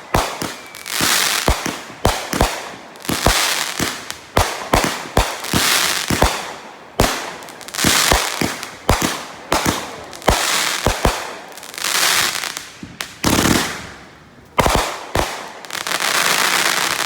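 Aerial fireworks shells bursting close by in quick succession, a sharp bang about every second, each followed by a crackling, hissing tail that fades.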